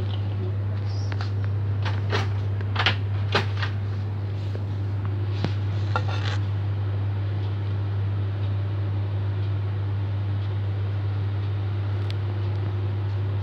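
A few sharp clinks and knocks of kitchenware against a mixing bowl on a kitchen scale during the first six seconds, over a steady low hum.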